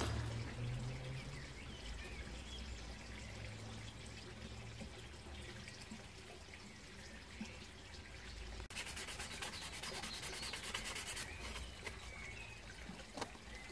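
Faint steady outdoor background with a low hum. Then, about two thirds of the way in, sandpaper rubbing quickly back and forth on a hand-carved wooden spoon in a rapid run of even strokes for two or three seconds, followed by lighter scratching.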